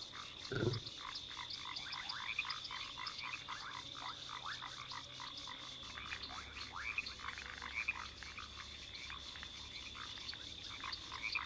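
A chorus of frogs calling, with many short, rapid overlapping calls and a steady high-pitched tone beneath them. A low thump comes about half a second in.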